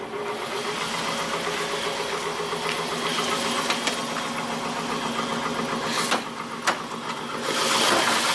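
Chevrolet Silverado pickup engine idling steadily, running on a newly fitted alternator. There are two sharp clicks about six seconds in, and the sound gets louder near the end.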